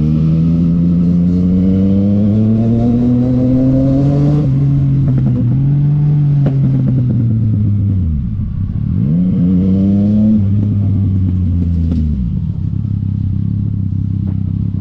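Yamaha MT-09 SP's inline-three engine heard from the rider's seat as the bike accelerates. The engine note climbs steadily for about four seconds and then steps down with a gear change. The revs fall away about eight seconds in, rise sharply again and settle to a steady cruise.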